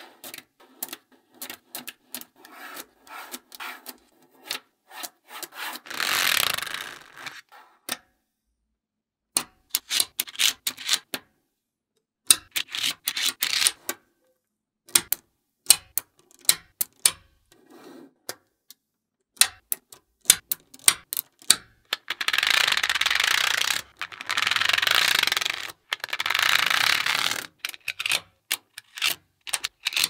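Small magnetic balls clicking and snapping against each other as they are laid and pressed into rows. There are longer raspy rubbing sweeps across the rows, one about six seconds in and three close together near the end.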